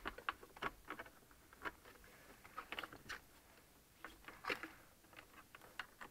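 Scattered light clicks and rustles of wiring cables being fed through the dismantled plastic center console trim and brackets by hand.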